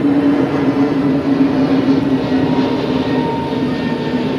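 Fish-pond aerator running: a steady mechanical drone with a low hum over churning water.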